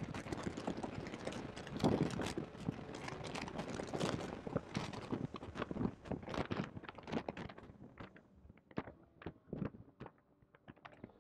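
Distorted in-car microphone audio in a Porsche 991.2 GT3 at track speed: dense, irregular crackling knocks and buffeting from a badly placed mic, thinning out and dropping in level near the end as the car brakes hard from about 150 mph.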